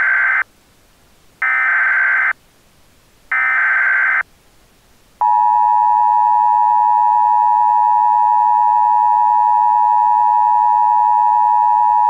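Emergency Alert System SAME header: data bursts of about a second each, a second apart, then about five seconds in the steady two-tone EAS attention signal (853 and 960 Hz sounding together) that opens a Civil Danger Warning.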